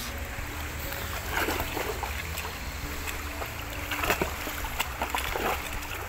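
Water splashing and sloshing as a dip net is pushed and swept through a shallow stream along a grassy bank, over the steady rush of flowing water. Louder sloshes come about 1.5, 4 and 5.5 seconds in.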